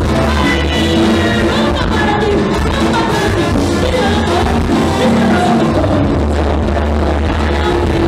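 Live Cuban dance band playing a songo, with trumpets and saxophone over a heavy bass line and percussion; the deep bass thins out briefly about five seconds in.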